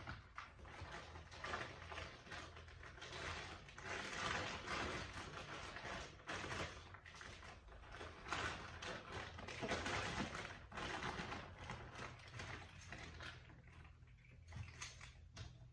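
Plastic packaging rustling and crinkling as it is handled, in uneven bursts that swell and fade, over a low steady hum.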